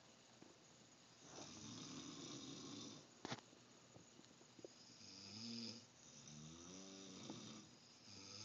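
Faint snoring of a sleeping person: a rough breath early on, a sharp click about three seconds in, then two drawn-out snores with a wavering pitch in the second half, and another starting near the end.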